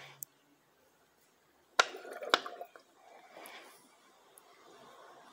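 Plastic oil bottle held upside down in a DSG gearbox's mechatronic filler, giving two sharp plastic clicks about half a second apart as it is gripped, followed by a soft rustling hiss.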